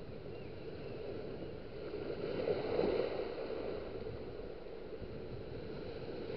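Small waves of shallow surf washing in over sand and around wading feet, a rushing wash that swells about two and a half seconds in and then eases back.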